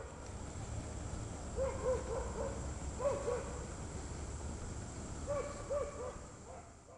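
Hooting calls: quick groups of three or four short, rising-and-falling notes, heard three times over a low rumble.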